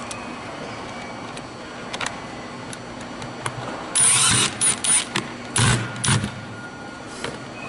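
Cordless driver with a number two Phillips bit running in several short bursts, about four seconds in, as it drives screws back into a framing nailer's housing.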